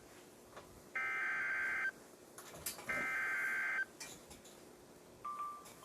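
NOAA Weather Radio SAME digital header bursts: two identical bursts of data tones, each about a second long and two seconds apart, followed near the end by a short beep. These bursts open a new warning, with the long alert tone following just after.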